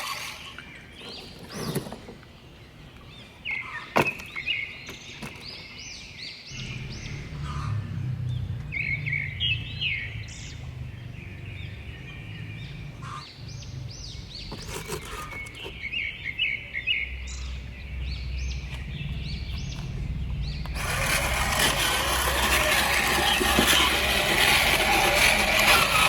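Birds chirping in short repeated runs over a low steady hum; about 21 seconds in, a loud steady hiss sets in and covers them.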